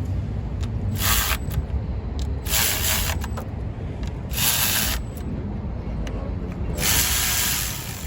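Power ratchet gun running bolts down in four short bursts of about half a second to a second each, with a steady low hum underneath.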